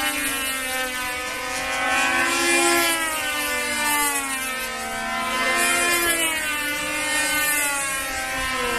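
Control-line model airplane's engine running steadily, its pitch rising and falling in a repeating cycle as the plane laps the flying circle.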